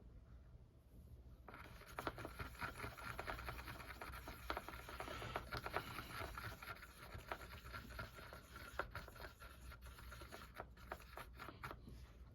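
Faint, scratchy scraping of a brush mixing paint, starting about a second and a half in, with scattered light taps.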